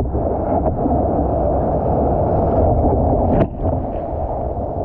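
Surf whitewater rushing over a surfboard-mounted action camera: a loud, muffled, continuous rush of foaming water and wind on the microphone. It drops a little about three and a half seconds in.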